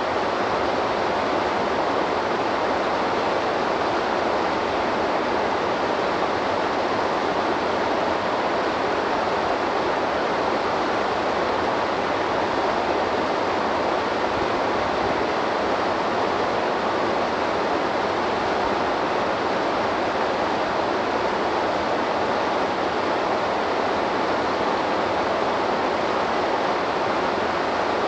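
Waterfall on a river: a steady, unbroken rush of falling water.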